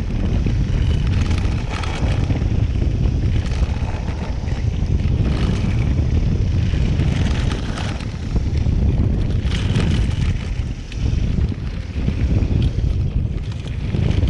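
Wind rushing over an action camera's microphone on a fast-moving downhill mountain bike, a loud steady rumble, with tyres crunching over gravel and short knocks and rattles from the bike over the bumps.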